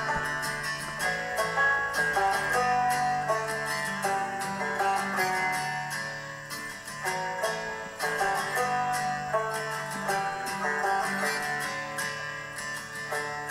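Background music on plucked string instruments, with quick runs of notes throughout.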